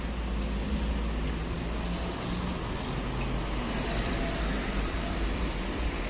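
A car driving past close by, its engine and tyre noise over steady street noise.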